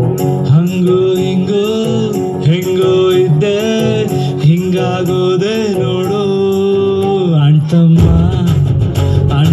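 Loud music with a wavering melody line over a steady bass. The bass grows much heavier about eight seconds in.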